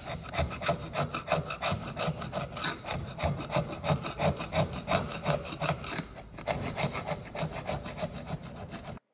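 Flat screwdriver scraping old felt out of a 1975 International Scout II's metal window channel, a quick run of rasping strokes several a second that stops abruptly near the end.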